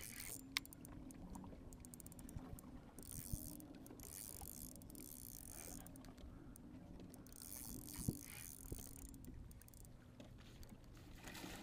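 Faint boat sounds: a steady low hum with scattered light clicks and a few brief rushes of wind or water hiss.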